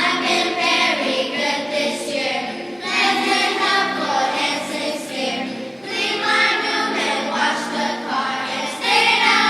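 Children's choir singing together in phrases, with short breaths between lines about three and six seconds in.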